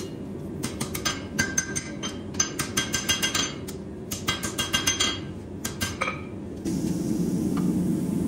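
Hand hammer striking a hot steel knife blade on an anvil, in quick runs of blows with a bright metallic ring, broken by two short pauses. Near the end the blows stop and a steady low rumble takes over.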